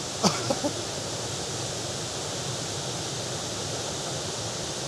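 Steady, dense rushing of the huge Devil's Throat waterfall at Iguazu Falls: a continuous even noise, very loud up close. A brief vocal sound comes just after the start.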